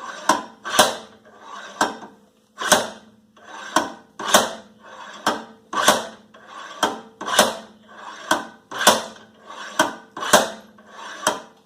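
Sledgehammer repeatedly striking a seized rear wheel hub on a 2010 Toyota Prius, sharp metal-on-metal blows about two a second with ringing after each. The hub is stuck fast and not budging under the blows.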